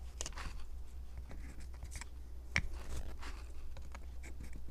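Small clicks and taps of wooden popsicle sticks being handled and fitted together into an A-frame, with one sharper click about two and a half seconds in, over a steady low hum.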